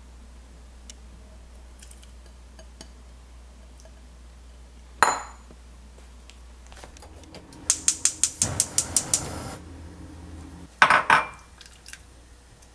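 Kitchen utensils clinking against a bowl: one sharp ringing clink, then a quick run of about ten taps, then a couple more loud clinks near the end.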